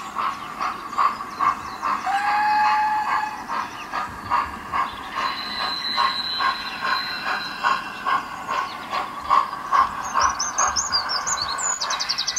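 Steam train sound: a steady rhythm of beats, about two to three a second, with a short whistle about two seconds in. Bird chirps come in near the end.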